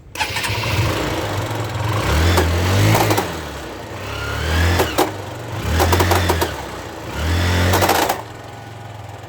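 Motorcycle engine revved up four times, with a loud, strange clicking clatter from the drive chain at each rev as it slips over a front sprocket whose teeth are worn out, on a worn chain. The engine drops back to idle near the end.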